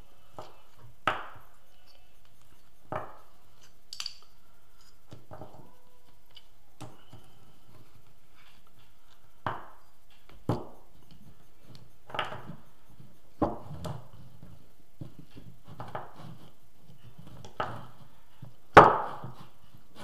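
Scattered knocks and clicks as the loose steel claw-pole halves and magnets of a home-made alternator rotor are pulled apart and set down on a wooden table, the loudest knock near the end.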